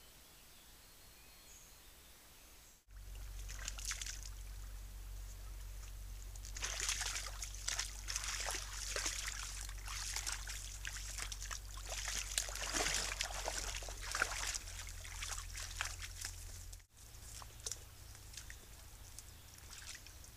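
Roe deer, a doe and fawn, wading in a shallow stream: irregular sloshes, splashes and drips of water from their legs, busiest in the middle, over the trail camera's steady low hum. The sounds start suddenly about three seconds in and drop to fainter splashes after a break near the end.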